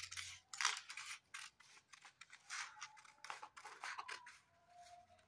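Large brass-handled scissors snipping through sheet paper along a curved cutting line: a run of short, crisp cuts, a few a second, at an uneven pace.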